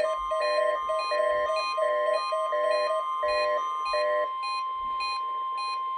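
A NOAA Weather Radio warning alarm: a steady 1050 Hz tone sounding as part of a weekly test signal. A repeating electronic chime of about two notes a second plays over it and grows faint about four seconds in.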